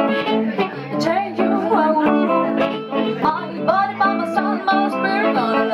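Harmonica, cupped against a handheld microphone, playing a lead line of bending, wavering notes over a hollow-body electric guitar.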